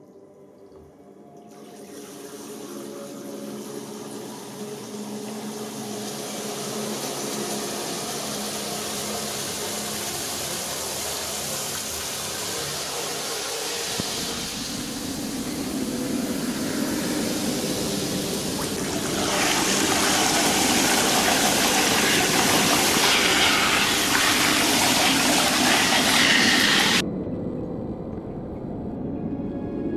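Rushing, flushing water that swells steadily louder for over twenty seconds and then cuts off suddenly near the end, over a faint low ambient music drone.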